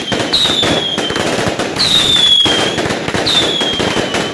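Fireworks going off: steady crackling and popping, with three high whistles about a second and a half apart, each sliding slightly down in pitch.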